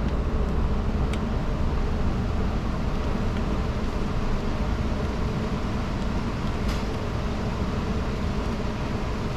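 Steady low hum of shop ventilation or a fan running, with two faint clicks, about a second in and near seven seconds.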